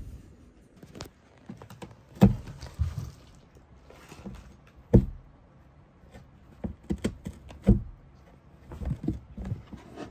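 A cat moving about inside a cardboard pet house, bumping and scratching at the cardboard walls: irregular thumps, three of them loud, with smaller scratching and rustling between.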